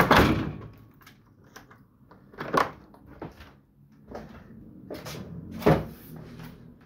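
Indoor knocks and clunks like a door or cupboard being handled: a loud clunk at the start, then sharp knocks about two and a half and five and a half seconds in, with small clicks between.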